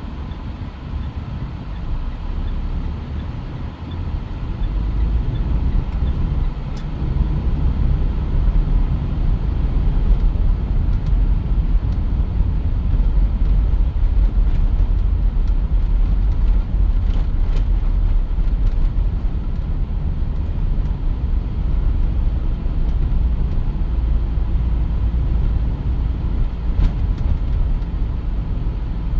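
Mitsubishi Pajero Sport on the move: a steady low rumble of engine and road noise that builds over the first several seconds and then holds.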